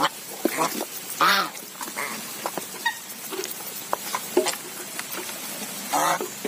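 A flock of white domestic geese feeding from a metal pot of wet mash, giving several short honking calls, the loudest about a second in. Their bills click and tap against the pot and the feed throughout.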